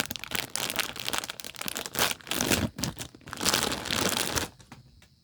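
Plastic packaging crinkling and rustling in repeated handfuls as a blind-box toy is unwrapped by hand; it dies away near the end.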